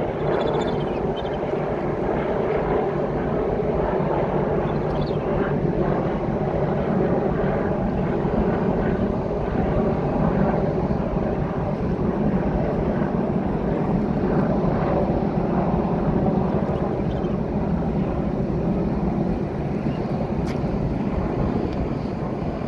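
Helicopter flying overhead: a steady drone of engine and rotor, mixed with wind noise on the microphone.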